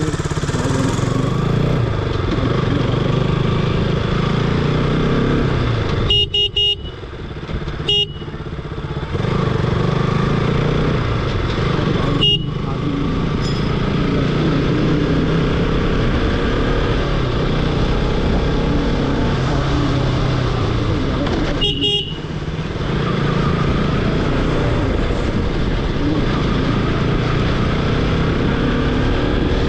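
KTM RC 200's single-cylinder engine running under way, with road and wind noise, its pitch rising near the end as the bike speeds up. A horn beeps four times: a short blast about six seconds in, another about eight seconds in, a brief one about twelve seconds in and one about twenty-two seconds in.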